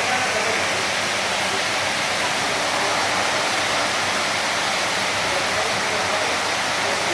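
Automatic carpet washing machine running: a steady, even rushing noise like running water.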